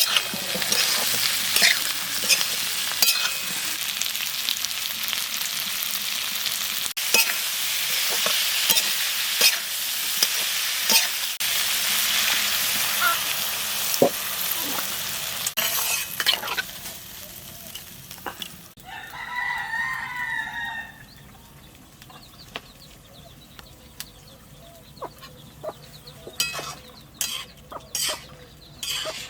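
Food sizzling as it fries in a pan, with clicks and scrapes of stirring, for about the first half; then the frying stops. A rooster crows once near the middle, and a few knocks follow near the end.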